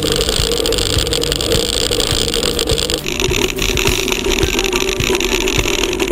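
Mountain bike rolling over a dirt track: steady rumble and wind noise with frequent small rattles and knocks from the bike. The sound changes abruptly about halfway through.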